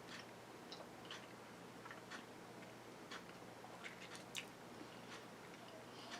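Quiet room with a clock ticking about once a second. Fainter irregular clicks of someone eating fall between the ticks.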